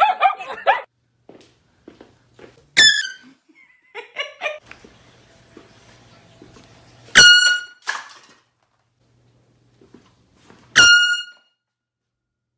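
Air horn blasted three times, each a short, loud, high blare, a few seconds apart.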